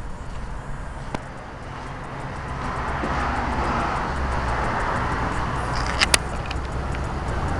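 Road traffic: a passing car's engine and tyre noise swells about two and a half seconds in and holds, with two sharp clicks near the end.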